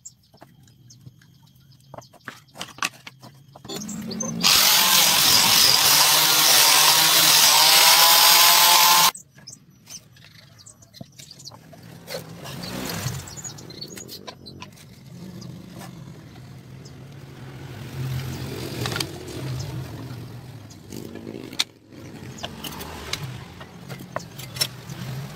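An electric power tool runs on wood for about four and a half seconds, starting and stopping abruptly. Around it are light knocks and clicks of small wooden pieces being handled on the work board.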